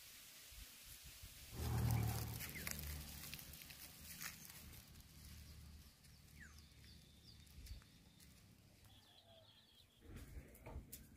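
Faint rural outdoor ambience with birds chirping and calling. A louder low sound swells about two seconds in and fades away.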